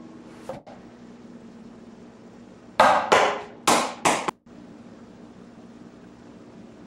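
Four sharp knocks in quick succession, about three seconds in, over a faint steady hum.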